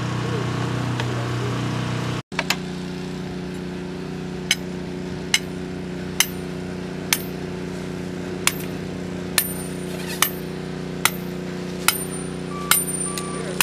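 Heavy-equipment diesel engine running steadily, with a sharp click about once every second. A backup alarm beeps near the end.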